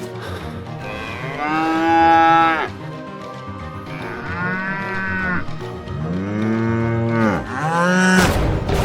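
A cow mooing: three long calls over background music.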